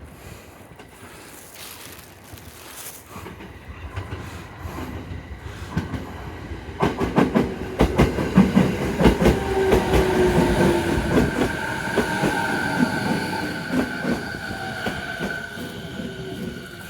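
JR 209-series electric train pulling into the station. Its wheels clatter over rail joints, growing loud about seven seconds in, and a whine falls slowly in pitch as the train slows.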